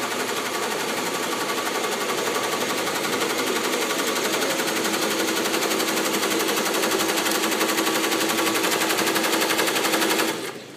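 Tajima multi-head embroidery machines stitching at speed: a rapid, even mechanical clatter of the needles. It stops suddenly near the end.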